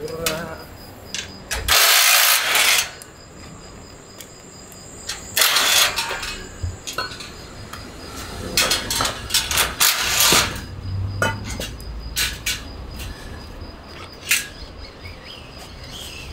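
Cordless drill driving out the bolts of a steel motorcycle shipping crate, running in several short bursts of about a second each, with a few sharp knocks from the metal frame.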